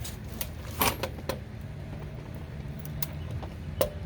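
A few sharp, irregular clicks and light knocks from tools being handled, over a steady low hum.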